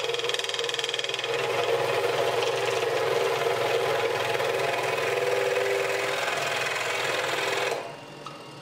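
Hegner scroll saw running with a number 5 Pegas modified geometry blade, cutting letters out of pine; a steady fast buzz of the reciprocating blade that stops sharply near the end.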